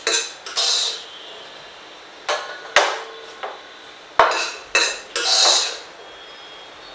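Metal spoon scraping and clinking against the inside of a Futura pressure cooker as cooked wheat and rice are scooped out, in a run of short strokes with a longer scrape a little past the middle.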